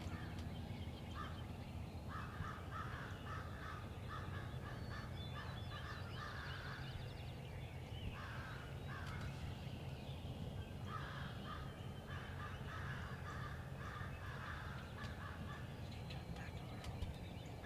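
Crows cawing in several quick runs of repeated calls, over a low steady hum.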